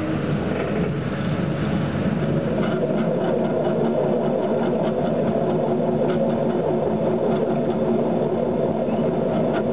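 Alsager-type cone drive potter's wheel running, its motor and cone drive making a steady mechanical whirring hum as the wheelhead spins.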